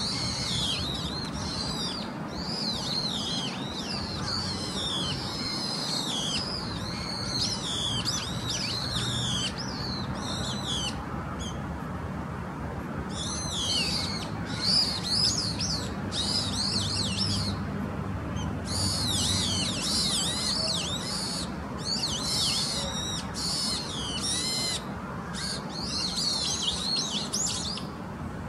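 A flock of many small birds chirping and twittering densely, their quick rising and falling calls overlapping, with a couple of brief lulls partway through. A steady low hum runs underneath.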